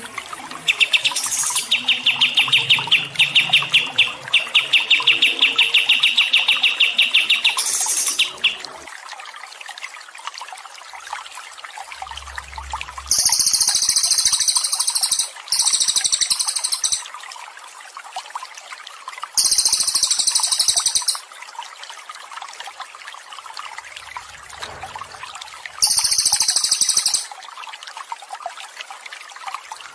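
Cage songbird singing a fast, rapidly repeated trill for about seven seconds, followed by four short bursts of very high, hissing chatter, over a faint steady trickle of water.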